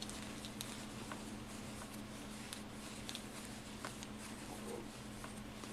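Quiet room tone with a steady low hum, and faint scattered small ticks of hands working a wooden crochet hook through yarn.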